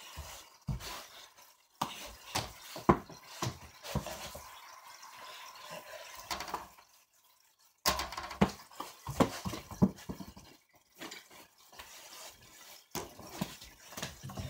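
Irregular light knocks and thumps in a small room, with no clear rhythm.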